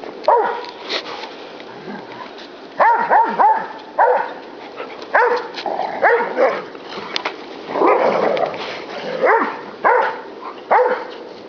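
Dog barking excitedly: about a dozen short, high-pitched barks, some in quick runs of two or three.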